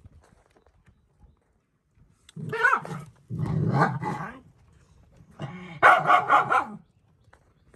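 A dog barking and growling in three loud bouts, a little over two seconds in, around three and a half seconds, and near six seconds, the last lasting about a second and a half.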